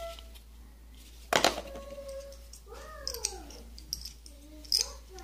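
Small white plastic shelf-support pins clicking and rattling in an open palm, with one sharp knock about a second in. A high-pitched call glides down about three seconds in, and shorter wavering calls follow near the end.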